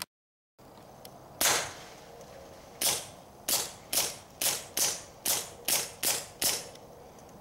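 Ruger MKIII 22/45 Lite .22 LR pistol with a SilencerCo Sparrow suppressor firing ten sharp, muted shots: one single shot, then after a pause nine more in quick succession, about two a second.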